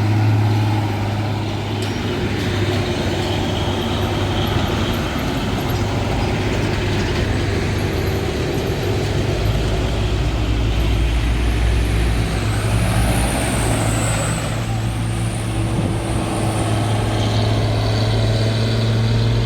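A convoy of heavy trucks passing close by on a road, engines running with a steady low drone. A deeper rumble joins about halfway through, with a faint high squeal around then.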